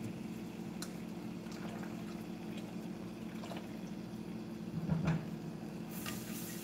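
Pot of pasta water boiling on a gas stove, a steady bubbling over a low hum, with faint utensil clicks and a soft thud about five seconds in.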